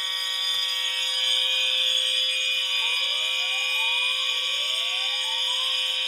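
Several fire alarm horns and sirens sounding together in a loud, steady tone. In the second half a rising whooping siren tone sweeps up three times, about a second and a half apart.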